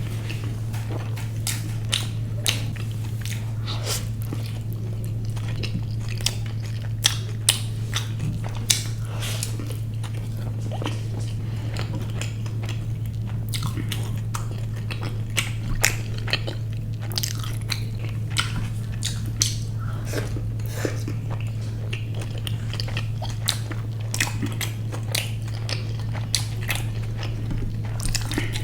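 Close-miked mouth sounds of someone biting and chewing a noodle burger: a run of soft wet clicks and smacks, with a few louder bites, over a steady low hum.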